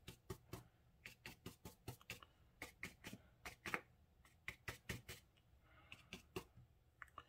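Faint, irregular light taps of a paintbrush dabbing watercolor onto paper to stipple tree foliage, several a second with short pauses.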